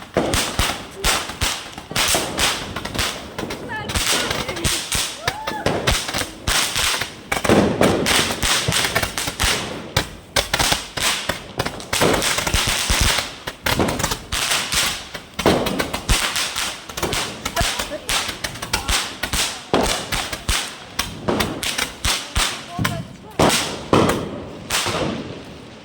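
Handheld Chinese multi-shot firework (a 60-shot 'Chinese shot') firing a long run of rapid pops and bangs, several a second, with some heavier thuds among them.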